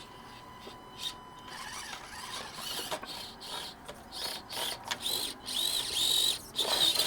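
Axial SCX24 mini RC crawler's small electric motor and gears whining, the pitch rising and falling with the throttle and growing louder in the second half, with scattered clicks and knocks from the truck crawling over the ground.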